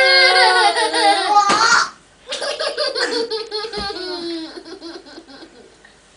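Young children laughing: a long, high squeal of delight, then a run of quick giggles that fades out a little past halfway.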